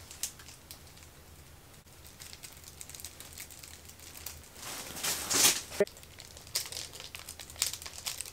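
Laundry rustling as it is pulled off plastic clothes-peg hangers, with the pegs snapping and clicking. The loudest rustle comes about five seconds in and ends with a sharp click, followed by a run of small clicks and rustles.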